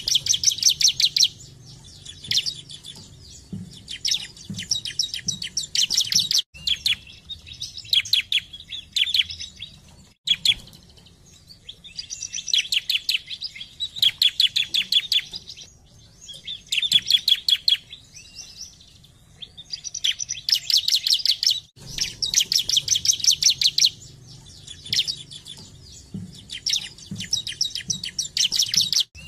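Bar-winged prinia (ciblek) singing vigorously: fast, sharp, chattering trills in repeated bursts of one to four seconds, broken by short pauses.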